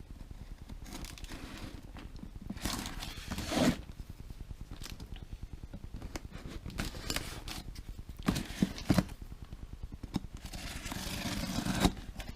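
A cardboard shipping box being opened by hand: tape being cut and torn, flaps and packing material scraping and rustling in several stretches, with a few sharp knocks partway through.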